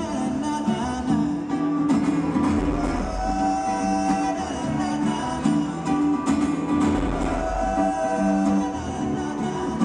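Live acoustic guitar music played through a stadium sound system, a repeating rhythmic guitar figure with held notes above it.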